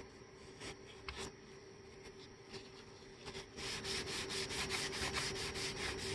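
A cloth wipe rubbed back and forth over a plastic radiator tank, cleaning around a crack. There are only a few light scuffs at first, then quick, steady scrubbing strokes from about three and a half seconds in, over a faint steady hum.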